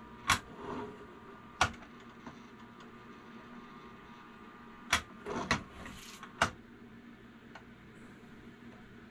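Sharp metallic clicks and knocks, about five of them, as a steel weight mold and a lead-melting pot are handled while molten lead is poured, with brief handling noise between them over a faint steady hum.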